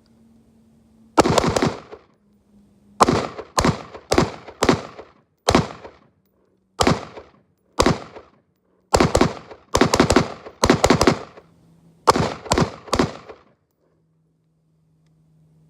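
Daniel Defense Mk18 AR pistol with a 10.3-inch barrel firing 5.56 Federal 55-grain rounds: about twenty sharp shots in quick strings with short pauses, stopping about two seconds before the end.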